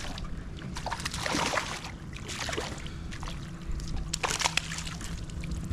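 Water sloshing and splashing against a kayak in several irregular bursts, with a faint steady hum underneath.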